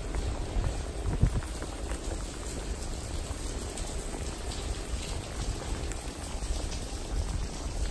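Steady rain falling on a wet cobbled street, a fine patter of drops over a low rumble, with one louder thump about a second in.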